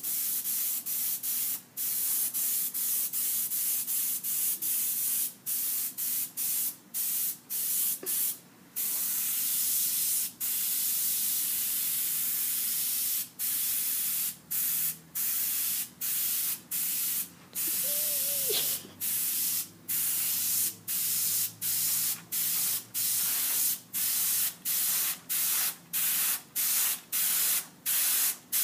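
Airbrush spraying in many short bursts as its trigger is pressed and released over and over, with one longer unbroken spray of about four seconds about nine seconds in.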